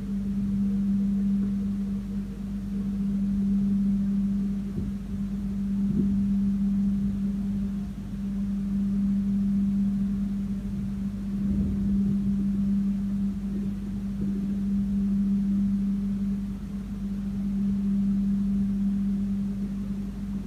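Steady low hum inside a passenger train carriage standing at a station, swelling and easing gently every few seconds.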